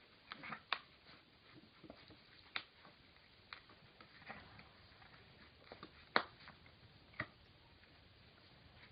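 Scattered faint clicks and taps of dogs at play and chewing: teeth working a hard chew stick and a puppy's claws on a tile floor, with the sharpest click about six seconds in.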